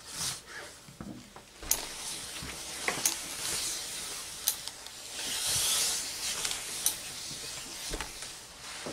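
A hose-fed steam iron being pushed over fabric, with a burst of steam hissing about five seconds in and several sharp clicks along the way.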